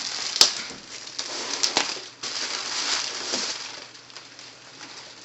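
Shipping box being opened and its packaging and bubble wrap handled: rustling and crinkling, with a couple of sharp clicks in the first two seconds.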